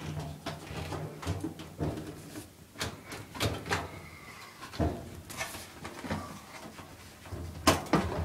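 Irregular clicks, knocks and light rattles of parts being handled and pried at while the blower cover of an LG dryer is taken off, over a low steady hum.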